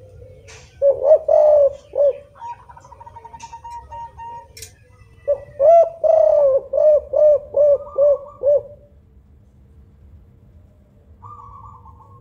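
Caged spotted dove (tekukur) of the 'kuk 5' call type cooing. A short group of coos comes about a second in, then a longer run of evenly spaced, rhythmic coos from about five to eight and a half seconds.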